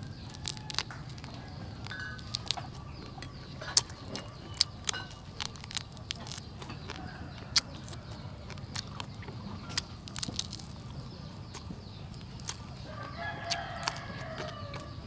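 Crisp crunching as fried quail is bitten and chewed, with sharp irregular crackles throughout. Chickens cluck in the background, with a longer chicken call near the end.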